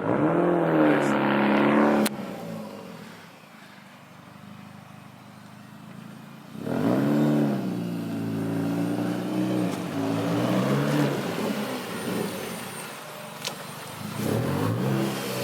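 Car engines revving and accelerating past in a street, three times: the pitch dips and climbs with each run. The first cuts off sharply about two seconds in, the second is the longest, and a third starts near the end.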